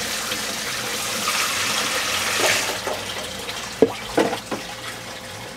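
Bailed seawater poured from a plastic tub into a stainless steel sink: a steady splashing rush for about three seconds that then dies down, followed by a few sharp knocks.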